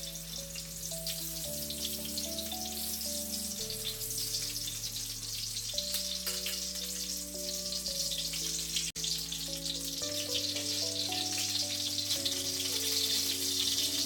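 Saba bananas frying in hot oil in a pan, a steady crackling sizzle, with background music of held chords and a bass line beneath it.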